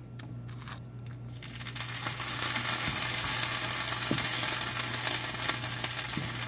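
Enamelled cast iron pan of polenta and squash sizzling with a steady hiss that starts about a second and a half in, as a spoon stirs and mashes through it.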